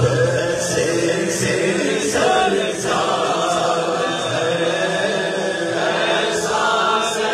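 Naat sung without instruments: a man's voice through a microphone leads, with several men's voices chanting a repeated refrain together, loud and unbroken.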